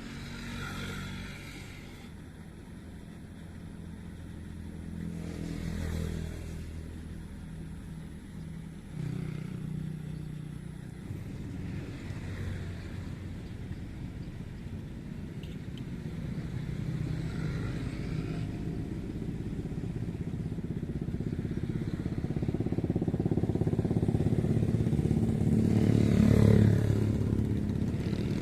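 An engine running, its pitch shifting up and down, getting gradually louder through the second half with a peak near the end.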